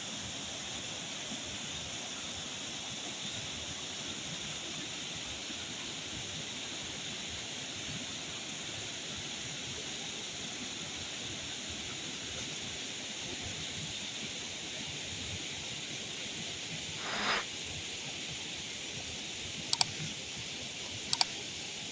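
Steady rushing of a small waterfall, an even wash of falling water. A brief, louder sound about three quarters of the way through and two sharp clicks near the end.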